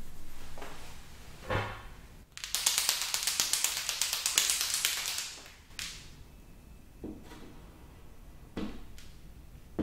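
Cloth rubbing on window glass and a knock, then a white chalk marker shaken hard for about three seconds, its mixing ball rattling rapidly, followed by a few light taps of the marker tip on the glass as drawing begins.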